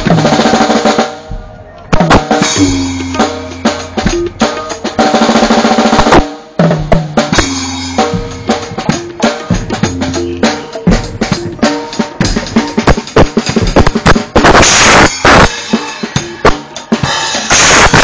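An acoustic drum kit played live: rapid beats and fills on snare, toms and kick drum, with cymbal crashes every few seconds and a crash-heavy stretch near the end.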